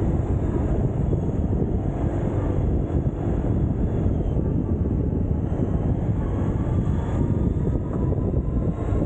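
Riding on a Suzuki Burgman 650 scooter: the low, steady running of its parallel-twin engine mixed with wind buffeting the microphone. A faint whine rises in pitch over the last few seconds.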